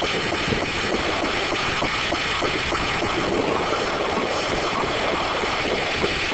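StrojCAD D9 circular sawmill running: a loud, steady machine noise with many small irregular knocks.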